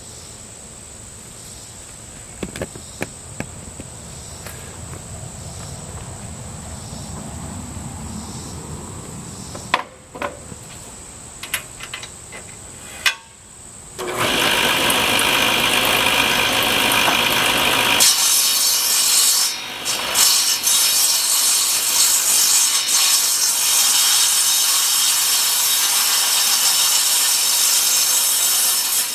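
Crickets chirping steadily with a few scattered knocks, then about halfway through a table saw starts ripping a rough white oak board: a loud, steady cutting noise whose tone shifts higher a few seconds in and holds to the end.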